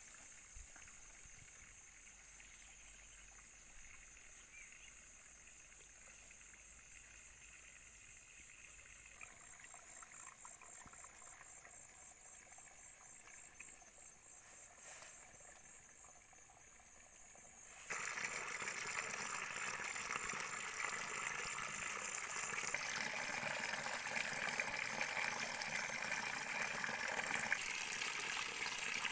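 Faint outdoor quiet with a steady high-pitched drone, then, about eighteen seconds in, a shallow stream of water running and trickling, much louder.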